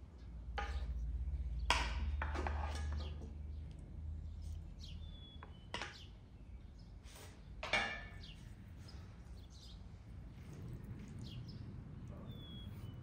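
Occasional bird chirps, with a few short knocks and handling noises from a wooden spoon and hands working a raw turkey. A low rumble runs through the first few seconds.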